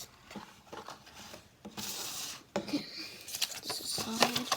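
Toy packaging being handled and opened: irregular rustling and crinkling with small clicks, in two bouts about two seconds and three and a half seconds in.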